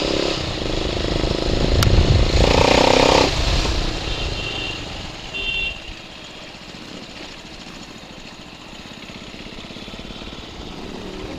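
Bajaj Pulsar 220's single-cylinder engine through an aftermarket exhaust, revving loud for the first few seconds and loudest about two to three seconds in, then dropping to a quieter, steady run.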